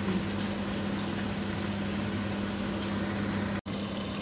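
Fenugreek leaves frying in oil in a pot: a steady sizzle with a low hum under it, cut off for an instant near the end.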